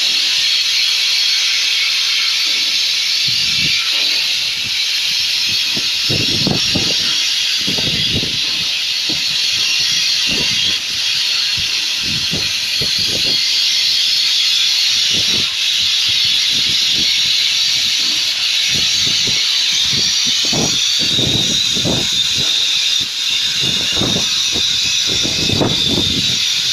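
CNC plasma cutter torch cutting steel plate: the plasma arc gives a loud, steady hiss. Irregular low rumbles come and go underneath.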